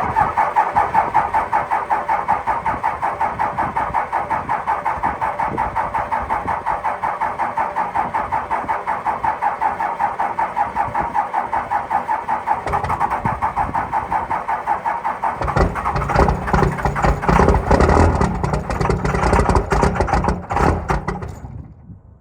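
Diesel engine cranking over on its starter with a long, even, rhythmic pulsing, a hard cold start, then catching about fifteen seconds in and running before the sound cuts off near the end.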